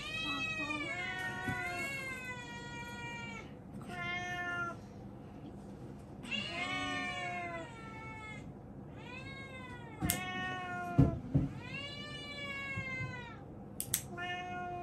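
A cat meowing again and again in long, drawn-out complaint, about six calls in all, while it is held on its back to have its claws clipped. A few sharp clicks and a knock come in the middle.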